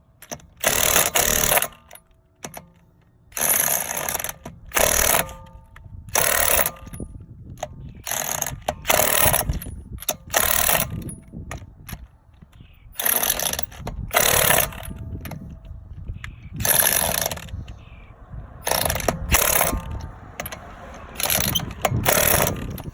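Hand ratchet wrench clicking in about a dozen short bursts, a second or so apart, as the wheel's lug nuts are tightened down in a star pattern.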